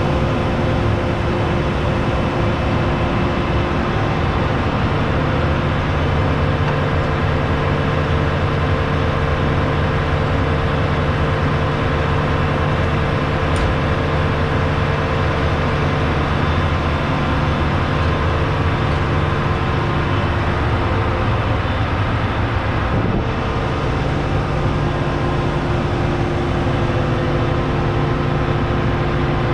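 John Deere S790 combine harvester's 13.5-litre six-cylinder diesel running steadily at a constant speed, a loud even drone with a few fixed humming tones.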